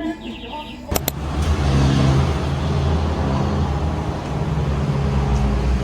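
A motor vehicle's engine running with a steady low rumble, starting abruptly about a second in, with traffic noise around it.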